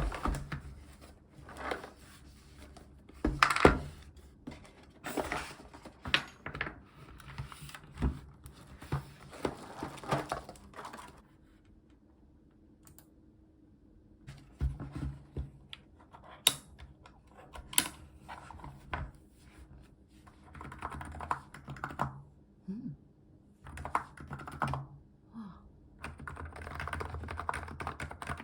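Typing on a Hansung GK893B capacitive (non-contact) keyboard: runs of key clicks in uneven bursts with a few heavier strokes, pausing briefly around the middle before resuming.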